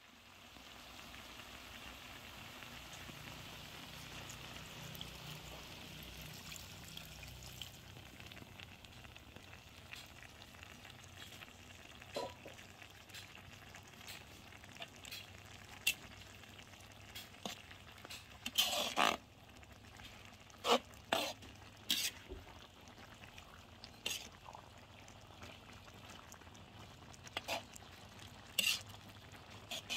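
Jackfruit cooking in coconut milk in a metal wok, with a steady soft sizzle. Scattered sharp clicks and scrapes of a metal spatula against the wok start about midway and come in quick clusters later on; these are the loudest sounds.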